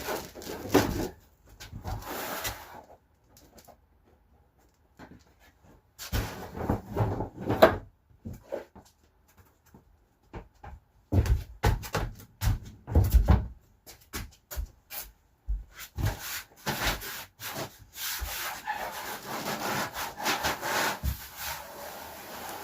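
Lino sheet being handled and rubbed down over the van's floor, in irregular spells of scraping and scuffing with a few knocks and low thumps, and a longer stretch of steady rubbing near the end.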